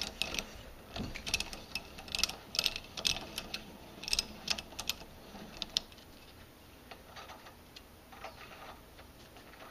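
Irregular metallic clicks and ticks from a hand tap being worked and backed out of a freshly threaded 1/4" NPT port in a cast Saginaw power steering gearbox housing. The clicks come thick for about the first six seconds, then thin out to a few scattered ones.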